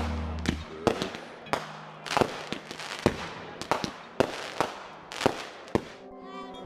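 Aerial fireworks going off: a string of sharp bangs and pops, about two a second, each ringing out briefly.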